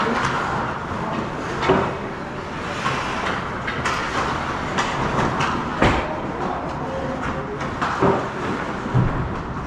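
Hockey game in play: a steady rink rumble with scraping, broken by sharp knocks of sticks and puck every second or two, one of them a heavy thud against the boards near the end.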